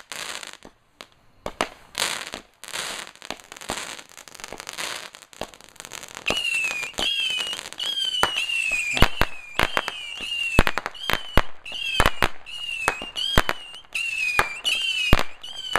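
Consumer fireworks going off: hissing, crackling bursts for about the first six seconds. Then comes a rapid run of shots, each a short falling whistle with sharp bangs, about two a second.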